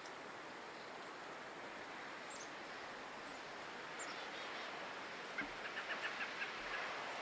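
Small birds calling outdoors: a few thin, high chips, then near the end a quick run of short repeated notes, over a steady hiss of wind.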